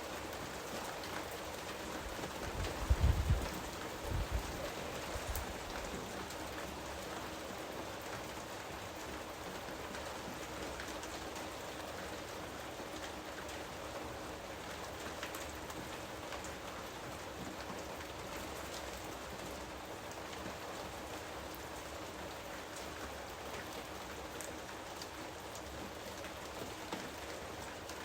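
Recorded rain falling steadily, with a low rumble about three seconds in.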